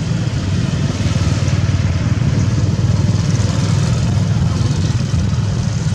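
An engine running steadily, a continuous low hum.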